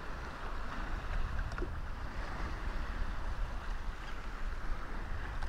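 Steady wind rushing over the microphone on open water, with a low buffeting rumble and the wash of small waves.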